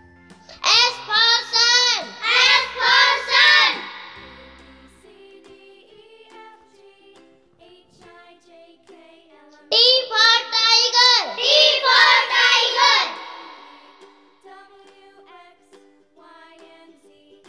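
A child's singing voice, two short sung phrases, the first about a second in and the second about ten seconds in, over soft background music of light plinking notes.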